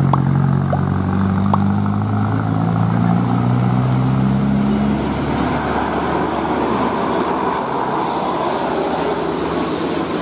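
Heavy bus engine running under load on an uphill climb: a deep, steady drone that drops away about halfway through, leaving a steady rushing road noise.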